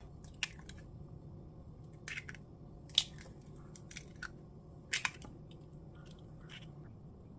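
Light clicks and taps of kitchen prep, about ten scattered sharp ones with the strongest about three and five seconds in, over a faint steady low hum.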